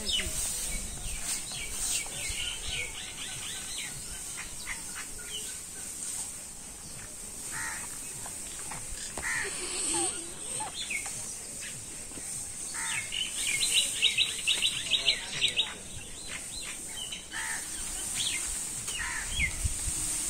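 Birds chirping, with two runs of quick repeated notes, one near the start and a longer one about two-thirds of the way through, over a steady high hiss.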